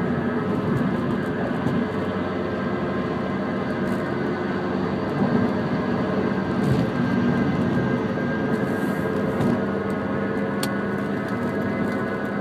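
Mini Cooper S R53 with its supercharged four-cylinder running, making a steady grinding noise: many steady tones over a dense rumble. The owner doesn't know its source; the wheel bearings, brakes and tyres are new, and he guesses it might be the clutch, which has begun to slip.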